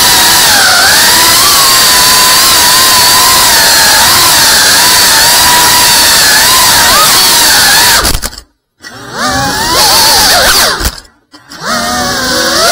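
Tiny whoop micro quadcopter's motors and propellers whining at a high pitch that wavers up and down. Twice near the end the sound drops out for a moment and comes back with rising whines as the motors spool up again.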